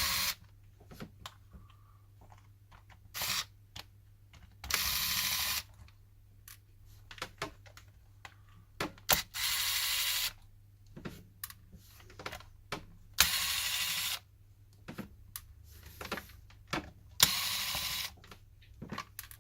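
Screwdriver backing out the small screws on the back of a PS4 controller. There are four runs of about a second each with small clicks and handling noises between them.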